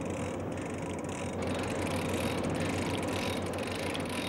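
Boat engine running steadily under the fight. From about a second and a half in, a big-game fishing reel's ratchet clicks rapidly as a hooked fish takes line off it.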